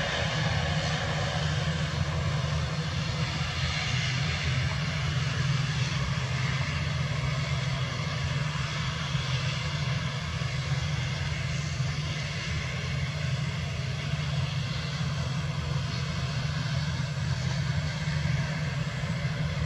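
An ATR 72's twin turboprop engines running steadily as the aircraft rolls along the runway: an even, low propeller drone with a fainter whine above it.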